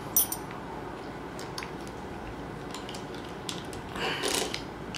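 Ratchet socket wrench clicking as it works a bolt on the handlebar's brake master cylinder clamp, loosening it. There are scattered single clicks, a loud one right at the start and a quicker run of ratcheting about four seconds in.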